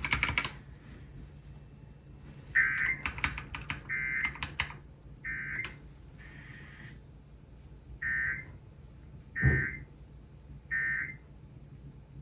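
Emergency Alert System end-of-message (SAME) data bursts: two sets of three short digital tone bursts, about a second and a half apart, marking the end of an alert broadcast. A run of sharp clicks falls among the first set, and a low thump comes with the middle burst of the second set.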